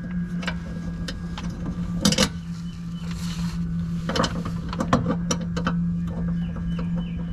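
Sharp metallic clicks and knocks of tool work on metal over a steady low hum, with a short hissing patch about three seconds in.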